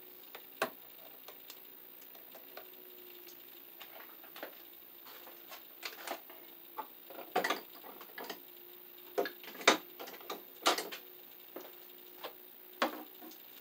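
Irregular sharp clicks and light knocks from hand tools and small parts being handled: the snap of wire strippers on copper wire ends, then scattered clacks that come louder and closer together in the second half. A faint steady hum lies underneath.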